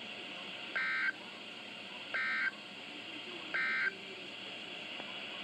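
Emergency Alert System SAME end-of-message code: three short, identical bursts of buzzy digital data tones about 1.4 seconds apart, over steady radio hiss. They mark the end of the broadcast alert.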